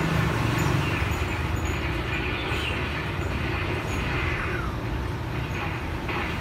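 Steady, fairly loud rumble of background noise of the kind road traffic makes, with no distinct events standing out.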